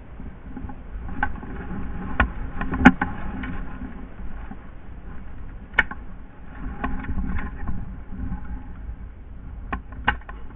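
About ten sharp clicks and snaps at irregular intervals, the loudest about three seconds in, over a constant low rumble.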